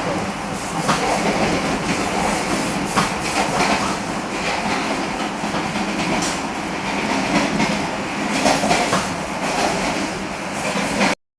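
Argo Cheribon passenger train running along the track, a steady rumble of the moving carriage with scattered clicks of the wheels over the rails. The sound cuts off suddenly near the end.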